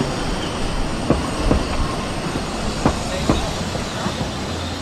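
A 750 mm narrow-gauge train rolling along the track, its wheels clicking over the rail joints in pairs under a steady rumble.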